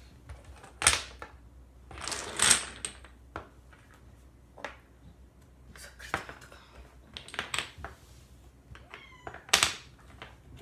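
Domino tiles clicking and clattering as they are handled, picked from a loose pile and set down: irregular separate sharp clicks, the loudest about a second in, in a cluster between two and three seconds in, and shortly before the end.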